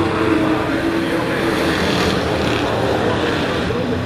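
A pack of sport race trucks running at racing speed through a turn, several engines overlapping in one steady, loud engine note.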